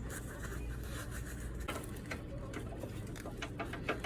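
Scattered light clicks and taps, coming several to the second in the second half, over a steady low hum: hand work on a car's front suspension as a coil spring is being fitted.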